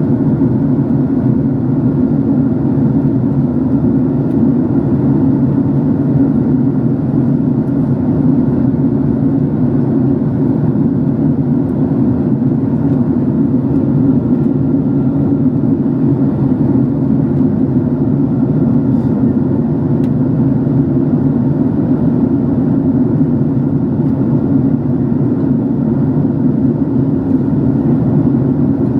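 Steady cabin drone of a Boeing 767-300 jetliner in its climb: engine and airflow noise heard from inside the passenger cabin, an even low rumble with no changes.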